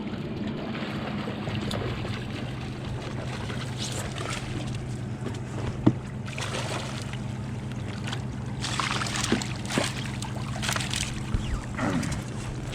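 Boat motor running steadily at low speed, with scattered rustling and a sharp knock about six seconds in.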